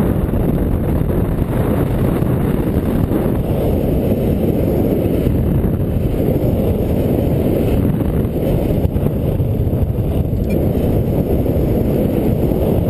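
Airflow buffeting the camera's microphone during paraglider flight: a steady low rush of wind noise.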